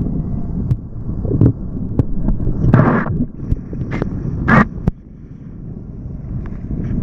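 Wind rumbling on the microphone of a camera mounted on a hydrofoil kiteboard while riding at speed, with a few short louder bursts of noise, the biggest about three seconds in and another about a second and a half later.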